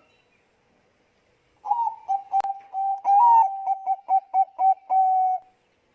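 Zebra dove (Bangkok-type perkutut) cooing: about a second and a half in, one phrase of quick, clipped notes at a single pitch, broken by a few longer held notes, lasting nearly four seconds. A single sharp click sounds early in the phrase.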